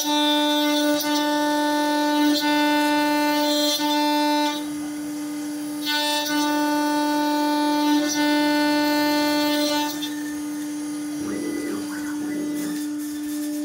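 CNC milling machine cutting metal: a steady, high-pitched singing tone of one unchanging pitch. Its ringing overtones grow and fade in stretches of a few seconds as the cutter works through the part.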